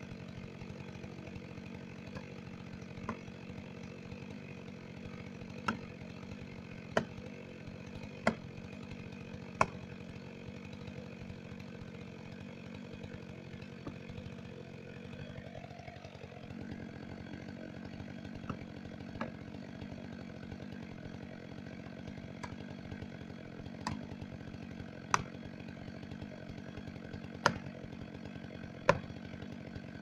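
Chainsaw idling steadily while an axe strikes the tree in sharp single blows, about one every second and a half, in two spells: one early and one in the second half.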